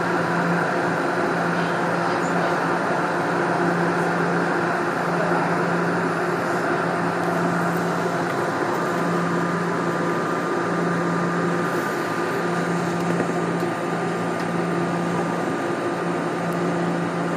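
Toronto Rocket subway train heard from inside in the tunnel: a steady hum and rushing noise, with a low tone that cuts in and out every second or two. A thin higher tone comes in through the second half.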